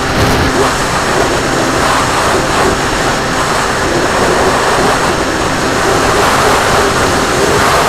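RC plane in flight: a steady, loud rush of wind and propeller noise, with a faint steady motor tone under it.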